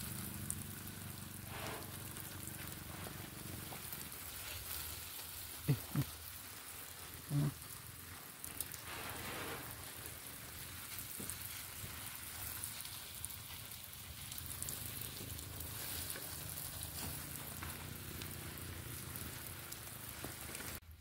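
Water spraying in a fine shower onto the soil and leaves of coffee seedlings in plastic nursery bags, a steady rain-like hiss as the freshly transplanted seedlings are watered in. Two brief low tones stand out, about six and seven and a half seconds in.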